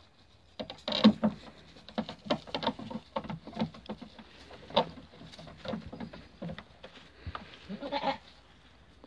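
Ouessant sheep bleating, mixed with a quick run of knocks and clatter; it is loudest about a second in, again near the middle, and with a last bleat near the end.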